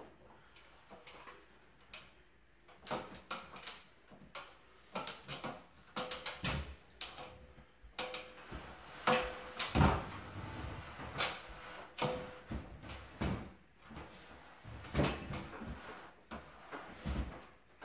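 Self-adhesive wallpaper and its paper backing being handled and pressed onto a ceiling: irregular rustling, crinkling and light knocks, with a few short squeaks.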